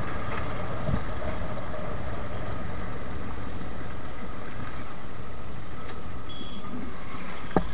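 Suzuki Gixxer single-cylinder motorcycle engine running steadily while riding at road speed, mixed with wind and road noise on the rider's camera. A short thump near the end.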